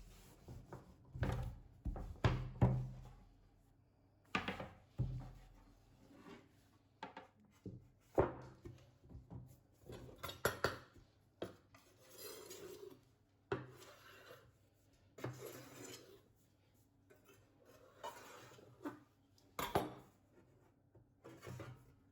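Kitchen utensils and dishes being handled: irregular knocks and clatter, with a few short stretches of rubbing.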